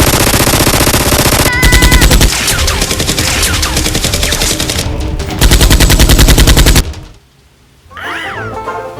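Rapid automatic gunfire sound effect: continuous machine-gun bursts, heaviest about a second and a half in and again about five and a half seconds in. It cuts off suddenly about seven seconds in, and music starts near the end.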